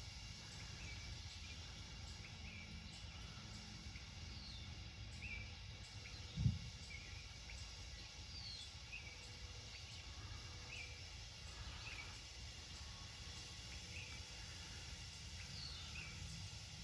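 Quiet outdoor background with birds chirping, many short falling chirps scattered throughout, over a steady low rumble. A single dull low thump comes about six and a half seconds in.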